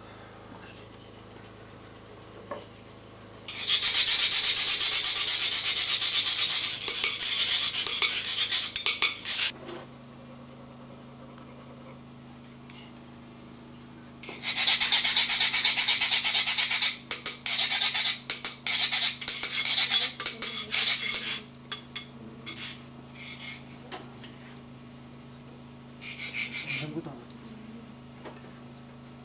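Metal chak-pur sand funnel being rasped with a ridged scraper rod, a fast grating that sets the coloured sand trickling out in a fine stream. It comes in three spells: a long steady one starting a few seconds in, another in the middle that breaks up into short strokes, and a brief one near the end.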